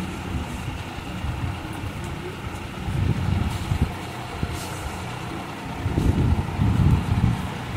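Low rumbling background noise that rises and falls, louder near the end.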